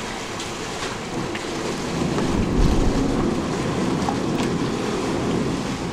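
Canal bus engine rumbling and water churning as the boat pulls in alongside a pier; the low rumble swells about two seconds in.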